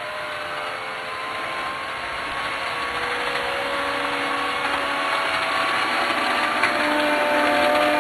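Model train running on the layout track: a steady rolling rumble with a faint motor whine that wavers slightly in pitch, growing louder as the train comes closer.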